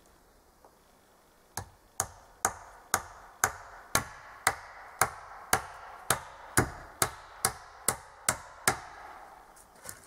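A hatchet striking wood in a steady run of about sixteen blows, roughly two a second, each a sharp knock with a short ring. The blows start about a second and a half in and stop a little over a second before the end.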